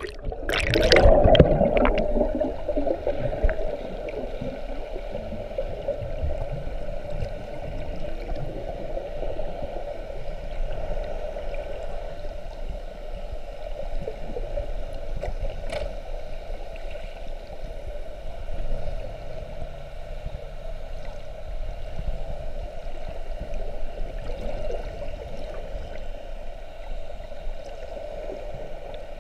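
Underwater sea noise heard through a submerged camera: a short burst of splashing and bubbling as it goes under, then a steady, muffled rushing of water.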